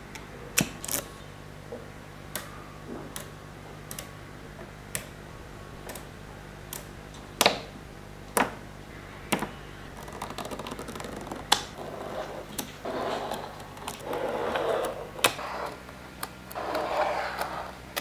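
Small magnetic balls clicking sharply as they snap together, one click at a time at irregular intervals. From about ten seconds in come longer clattering runs as a chain of balls is laid down and rolls into place.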